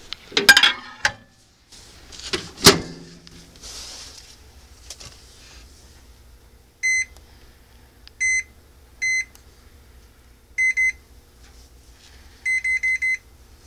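A microwave oven's door knocks shut, then its keypad beeps as buttons are pressed. There are single beeps a second or more apart, then four quick beeps near the end, which sound like the clock being set rather than the cook time.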